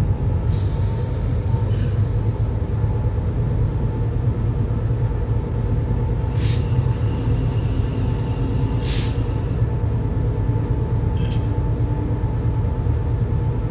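Diesel locomotive running steadily under way, heard from inside the cab as a constant low rumble with a steady whine. Three short hisses break through, near the start, about halfway through, and a little later.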